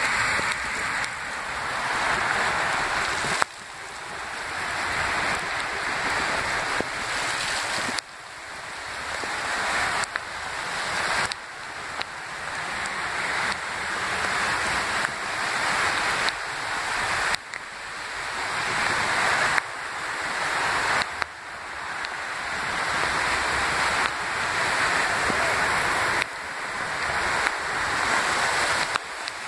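Heavy rain pouring on a flooded street, a steady rushing hiss of water, with cars pushing through the floodwater. The level keeps swelling and then dropping suddenly every few seconds.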